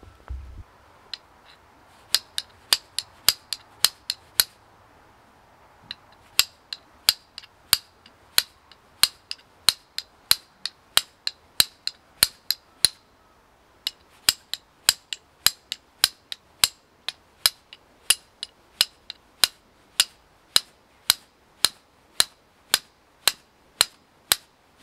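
Hand-held fire steel striking a piece of flint to throw sparks, a run of sharp clicks at about two a second, in three runs with two short pauses.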